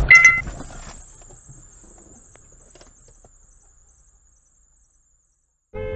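A loud, sudden bang at the very start with a brief high-pitched squeal, then a faint scratchy rattle that fades to silence within about four seconds. Just before the end a new loud blare with a steady pitch begins.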